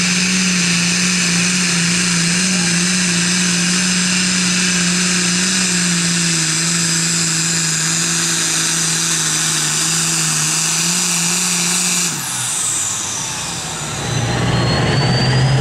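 John Deere super farm pulling tractor's turbocharged diesel engine running flat out under load, a steady note with a high turbo whine over it. About twelve seconds in the engine is let off and the whine falls away. Near the end another engine comes in with a rising whine.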